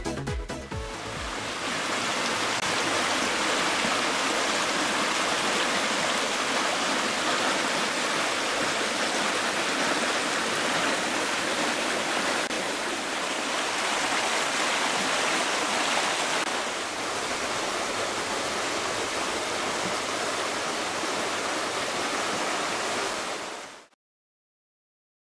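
Shallow river water rushing steadily past fallen branches, an even hiss of flowing water that cuts off abruptly near the end.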